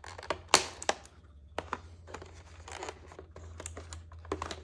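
Clear plastic packaging crinkling and crackling as it is cut with scissors and pulled from a cardboard insert, in irregular snaps. A sharp crack about half a second in is the loudest.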